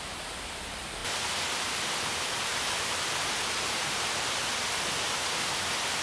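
Steady rush of a waterfall pouring over a rock ledge, a constant hiss of falling water that gets louder all at once about a second in.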